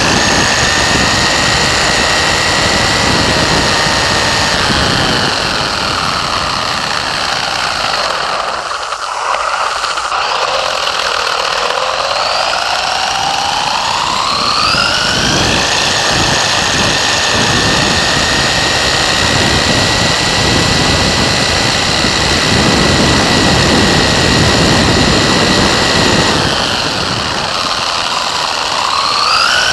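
WLtoys 144001 RC buggy's electric motor and gears whining, picked up by the onboard camera with tyre and wind noise beneath. The whine drops in pitch as the car slows about a third of the way in, rises again as it speeds up, holds high for a long stretch, then dips and climbs once more near the end.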